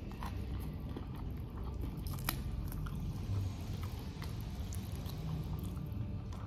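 A person biting and chewing food close to the microphone, with scattered sharp clicks of crunching, the sharpest about two seconds in.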